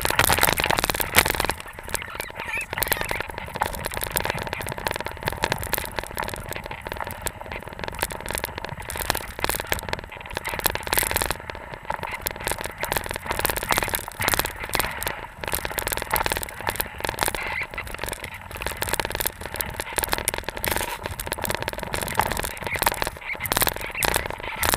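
Hok skis running over deep snow behind a pair of pulling dogs: a continuous hiss of sliding with dense, irregular crackles and scrapes.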